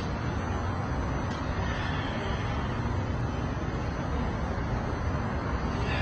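A steady low background rumble with a hiss on top and no distinct events.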